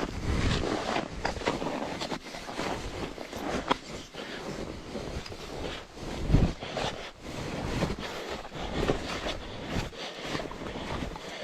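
Wind buffeting the microphone in uneven gusts, with a strong gust about six seconds in and a few short knocks through it.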